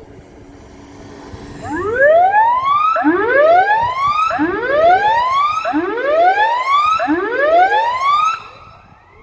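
Electronic tsunami warning siren sounding the Standard Emergency Warning Signal, here as a test: five loud, identical rising sweeps, one after another, starting about two seconds in and stopping shortly before the end.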